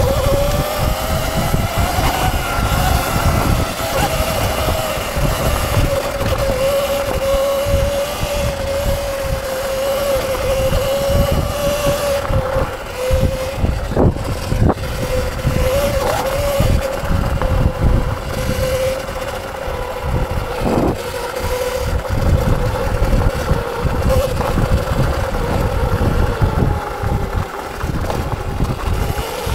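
Electric dirt bike being ridden off-road: the motor's steady whine drifts a little up and down with speed over a low rumbling noise. A few sharp knocks come past the middle.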